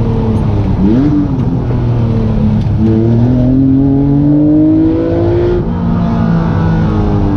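Acura NSX's mid-mounted V6, heard from inside the cabin while being driven hard: a quick rise and fall in revs about a second in, then the engine pulls steadily up through a gear until the revs drop at a gearshift about three-quarters of the way through.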